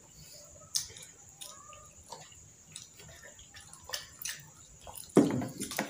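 Quiet eating sounds: light scattered clicks and taps of a skewer against a plastic tub and food, with drinking from a glass. A louder sudden sound comes about five seconds in.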